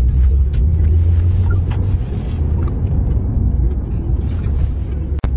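Steady low rumble of a car driving, heard from inside the cabin: engine and road noise. The sound cuts out for an instant near the end.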